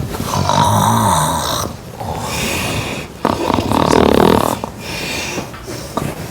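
A person snoring loudly in long, repeated snores, the louder snores alternating with softer breaths.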